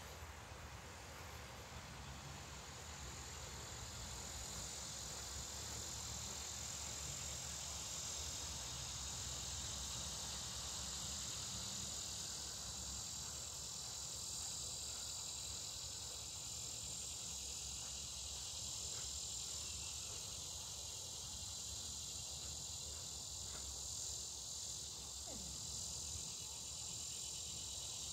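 Steady, high-pitched chorus of insects trilling, unbroken throughout.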